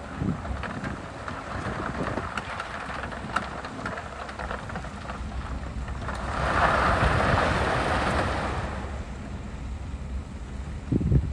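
Heavy diesel earthmoving machinery running steadily, with scattered clatter of soil and rocks. About six seconds in, a louder rushing noise swells for a few seconds and fades.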